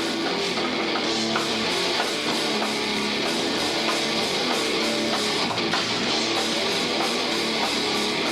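Live rock band playing with distorted electric guitars and drums at a steady beat.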